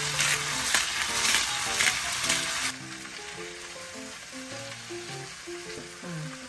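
Chicken pieces and cabbage sizzling in a hot frying pan, pulsing as salt is sprinkled over them, cutting off suddenly about two and a half seconds in. Gentle background music plays throughout.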